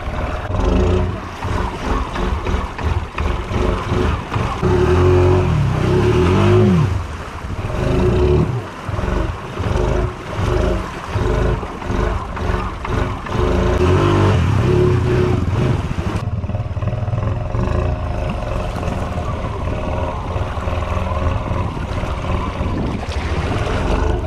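Honda Rancher ATV's single-cylinder engine running under load as it pushes through deep water, with water churning around the machine. The revs rise and fall repeatedly through the first two-thirds, then hold steadier.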